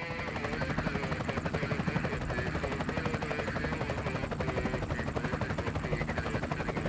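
Helicopter sound effect: fast, even rotor chop over a steady engine whine that wavers slightly in pitch.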